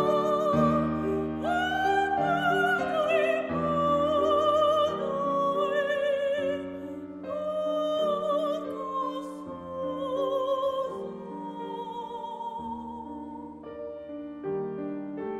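Classical soprano singing an art song with vibrato, accompanied by a grand piano. The singing grows softer over the second half.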